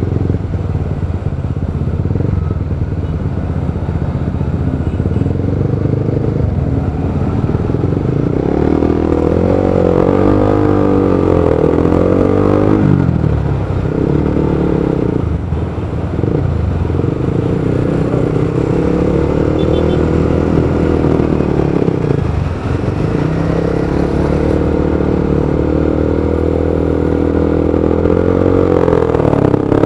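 Motorcycle engine running in stop-and-go riding. Its pitch rises and falls several times as it speeds up and eases off, with brief drops in the middle and about three-quarters of the way through.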